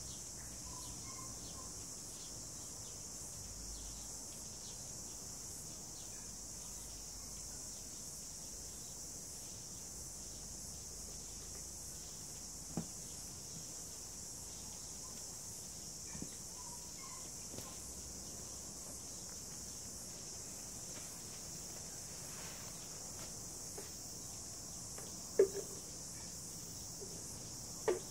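Steady high-pitched chorus of insects, with a few faint chirps and several sharp knocks, the loudest a little before the end.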